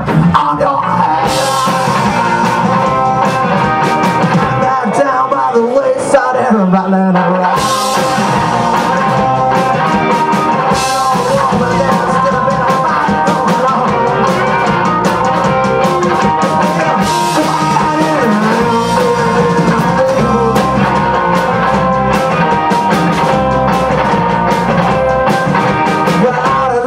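Live rock band playing a song: amplified guitars and drums, with a singer's voice.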